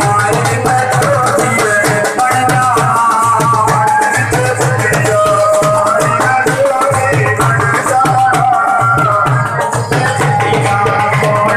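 Loud Indian folk dance music with a tabla and drum beat under a melody line, played over a hired DJ sound system.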